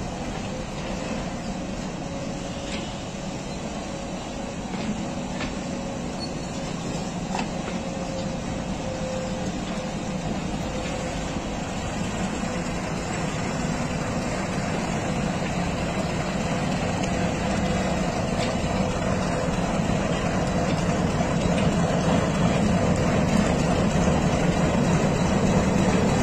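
Passenger train rolling slowly, a steady rumble with a few faint clicks and a thin steady whine. It grows gradually louder toward the end as the power car and diesel locomotive draw near.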